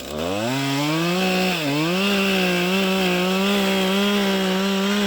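Two-stroke chainsaw revving from idle up to full throttle, dipping briefly about a second and a half in, then running steady and high while cutting into the trunk parallel to the face notch.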